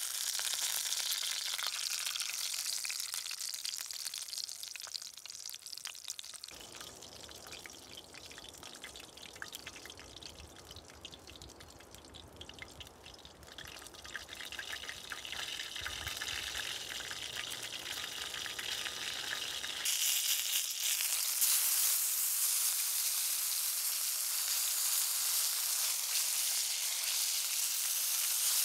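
Sausages sizzling and spitting in a cast-iron frying pan on a folding wood-burning camp stove. From about six seconds in the sizzle drops back and a low rumble comes in. At about twenty seconds the sizzle returns louder and sharper.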